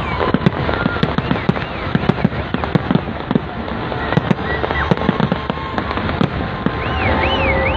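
Fireworks display: a dense, irregular run of shell bursts, bangs and crackles. A warbling whistle rises and falls over them, plainest near the end.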